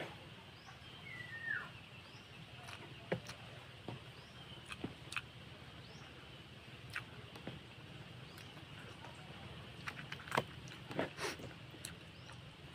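Close-up eating sounds of grilled barbecue being chewed: irregular wet clicks and lip smacks over a faint low background hum.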